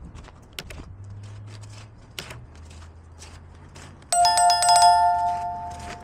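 Footsteps on a city pavement at an even walking pace over a low steady hum. About four seconds in, a loud two-pitched ring starts suddenly and fades out over about two seconds.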